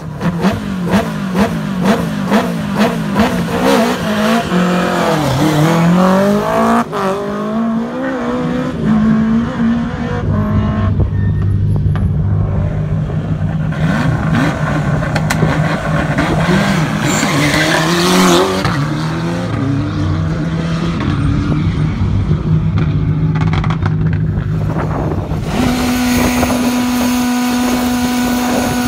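Turbocharged rally car engines, among them a Ford Escort RS Cosworth and a Skoda Fabia R5, revving at a stage start: sharp blips with cracks about twice a second at first, revs sweeping up and down, then steady running. Near the end one engine is held at a steady rev.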